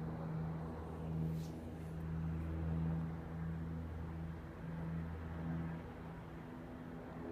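Police aircraft flying overhead. Its engine makes a steady drone, a low hum with a few higher tones above it, swelling and fading a little.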